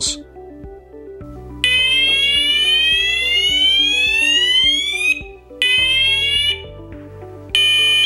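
C-TEC Hush Pro fire alarm sounder sounding its test tones over soft background music: the Fire Level 1 tone, a loud slowly rising sweep of about three and a half seconds followed by a short steady tone, then near the end the Fire Level 2 tone starts as a loud steady tone.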